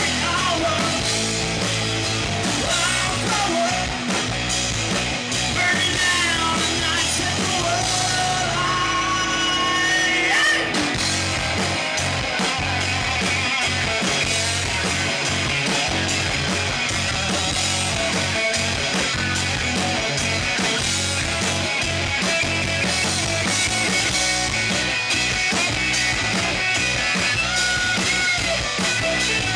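Live rock band playing: electric guitars, bass and drums, with a male lead singer.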